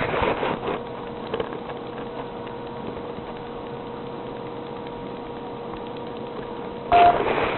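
Clicks and rustling as a phone and its USB cable are handled and plugged together, then a steady low hiss with a faint steady hum. Near the end there is a short, louder burst of noise with a brief tone.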